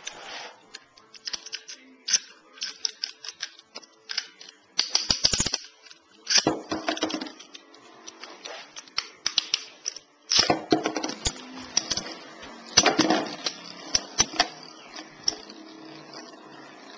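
Lightning L-Drago 100HF and Rock Aries ED145B Beyblade spinning tops clicking and clattering against each other and the plastic stadium, in several bursts of rapid clashing. A steadier whir of the spinning tops takes over near the end.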